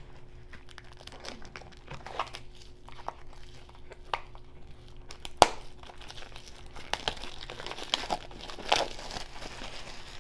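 Thin plastic shrink-wrap being peeled and crinkled off a trading card box, in scattered crackles that grow denser in the second half. There is one sharp click about five seconds in.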